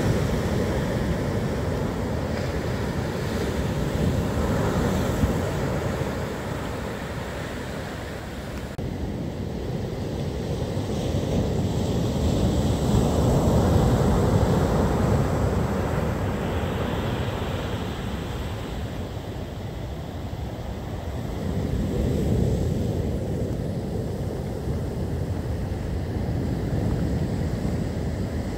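Heavy storm surf breaking and washing up the beach in a strong wind, with wind buffeting the microphone. The low rumble of the waves swells louder near the middle and again later on, easing in between as each set breaks and draws back.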